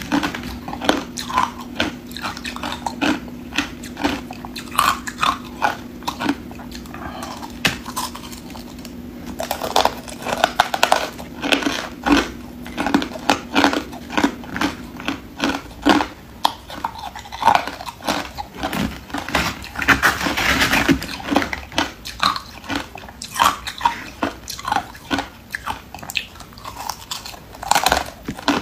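Hard crushed ice being bitten and chewed: a rapid, irregular run of sharp crunches and cracks, with a longer grinding crunch about two-thirds of the way through. A low steady hum sits under the first half and stops about halfway.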